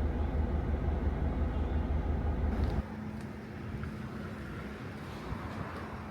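Motor vehicle running, a low pulsing rumble that drops off sharply about three seconds in to a quieter steady hum with a faint even tone.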